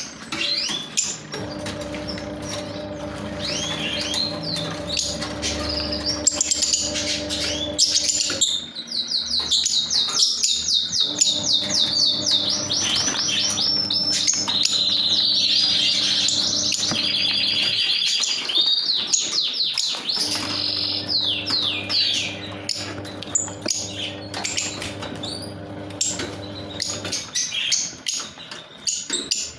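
Lovebirds chattering in fast, shrill trains of high chirps, busiest in the middle. A steady low hum runs underneath, dropping out twice.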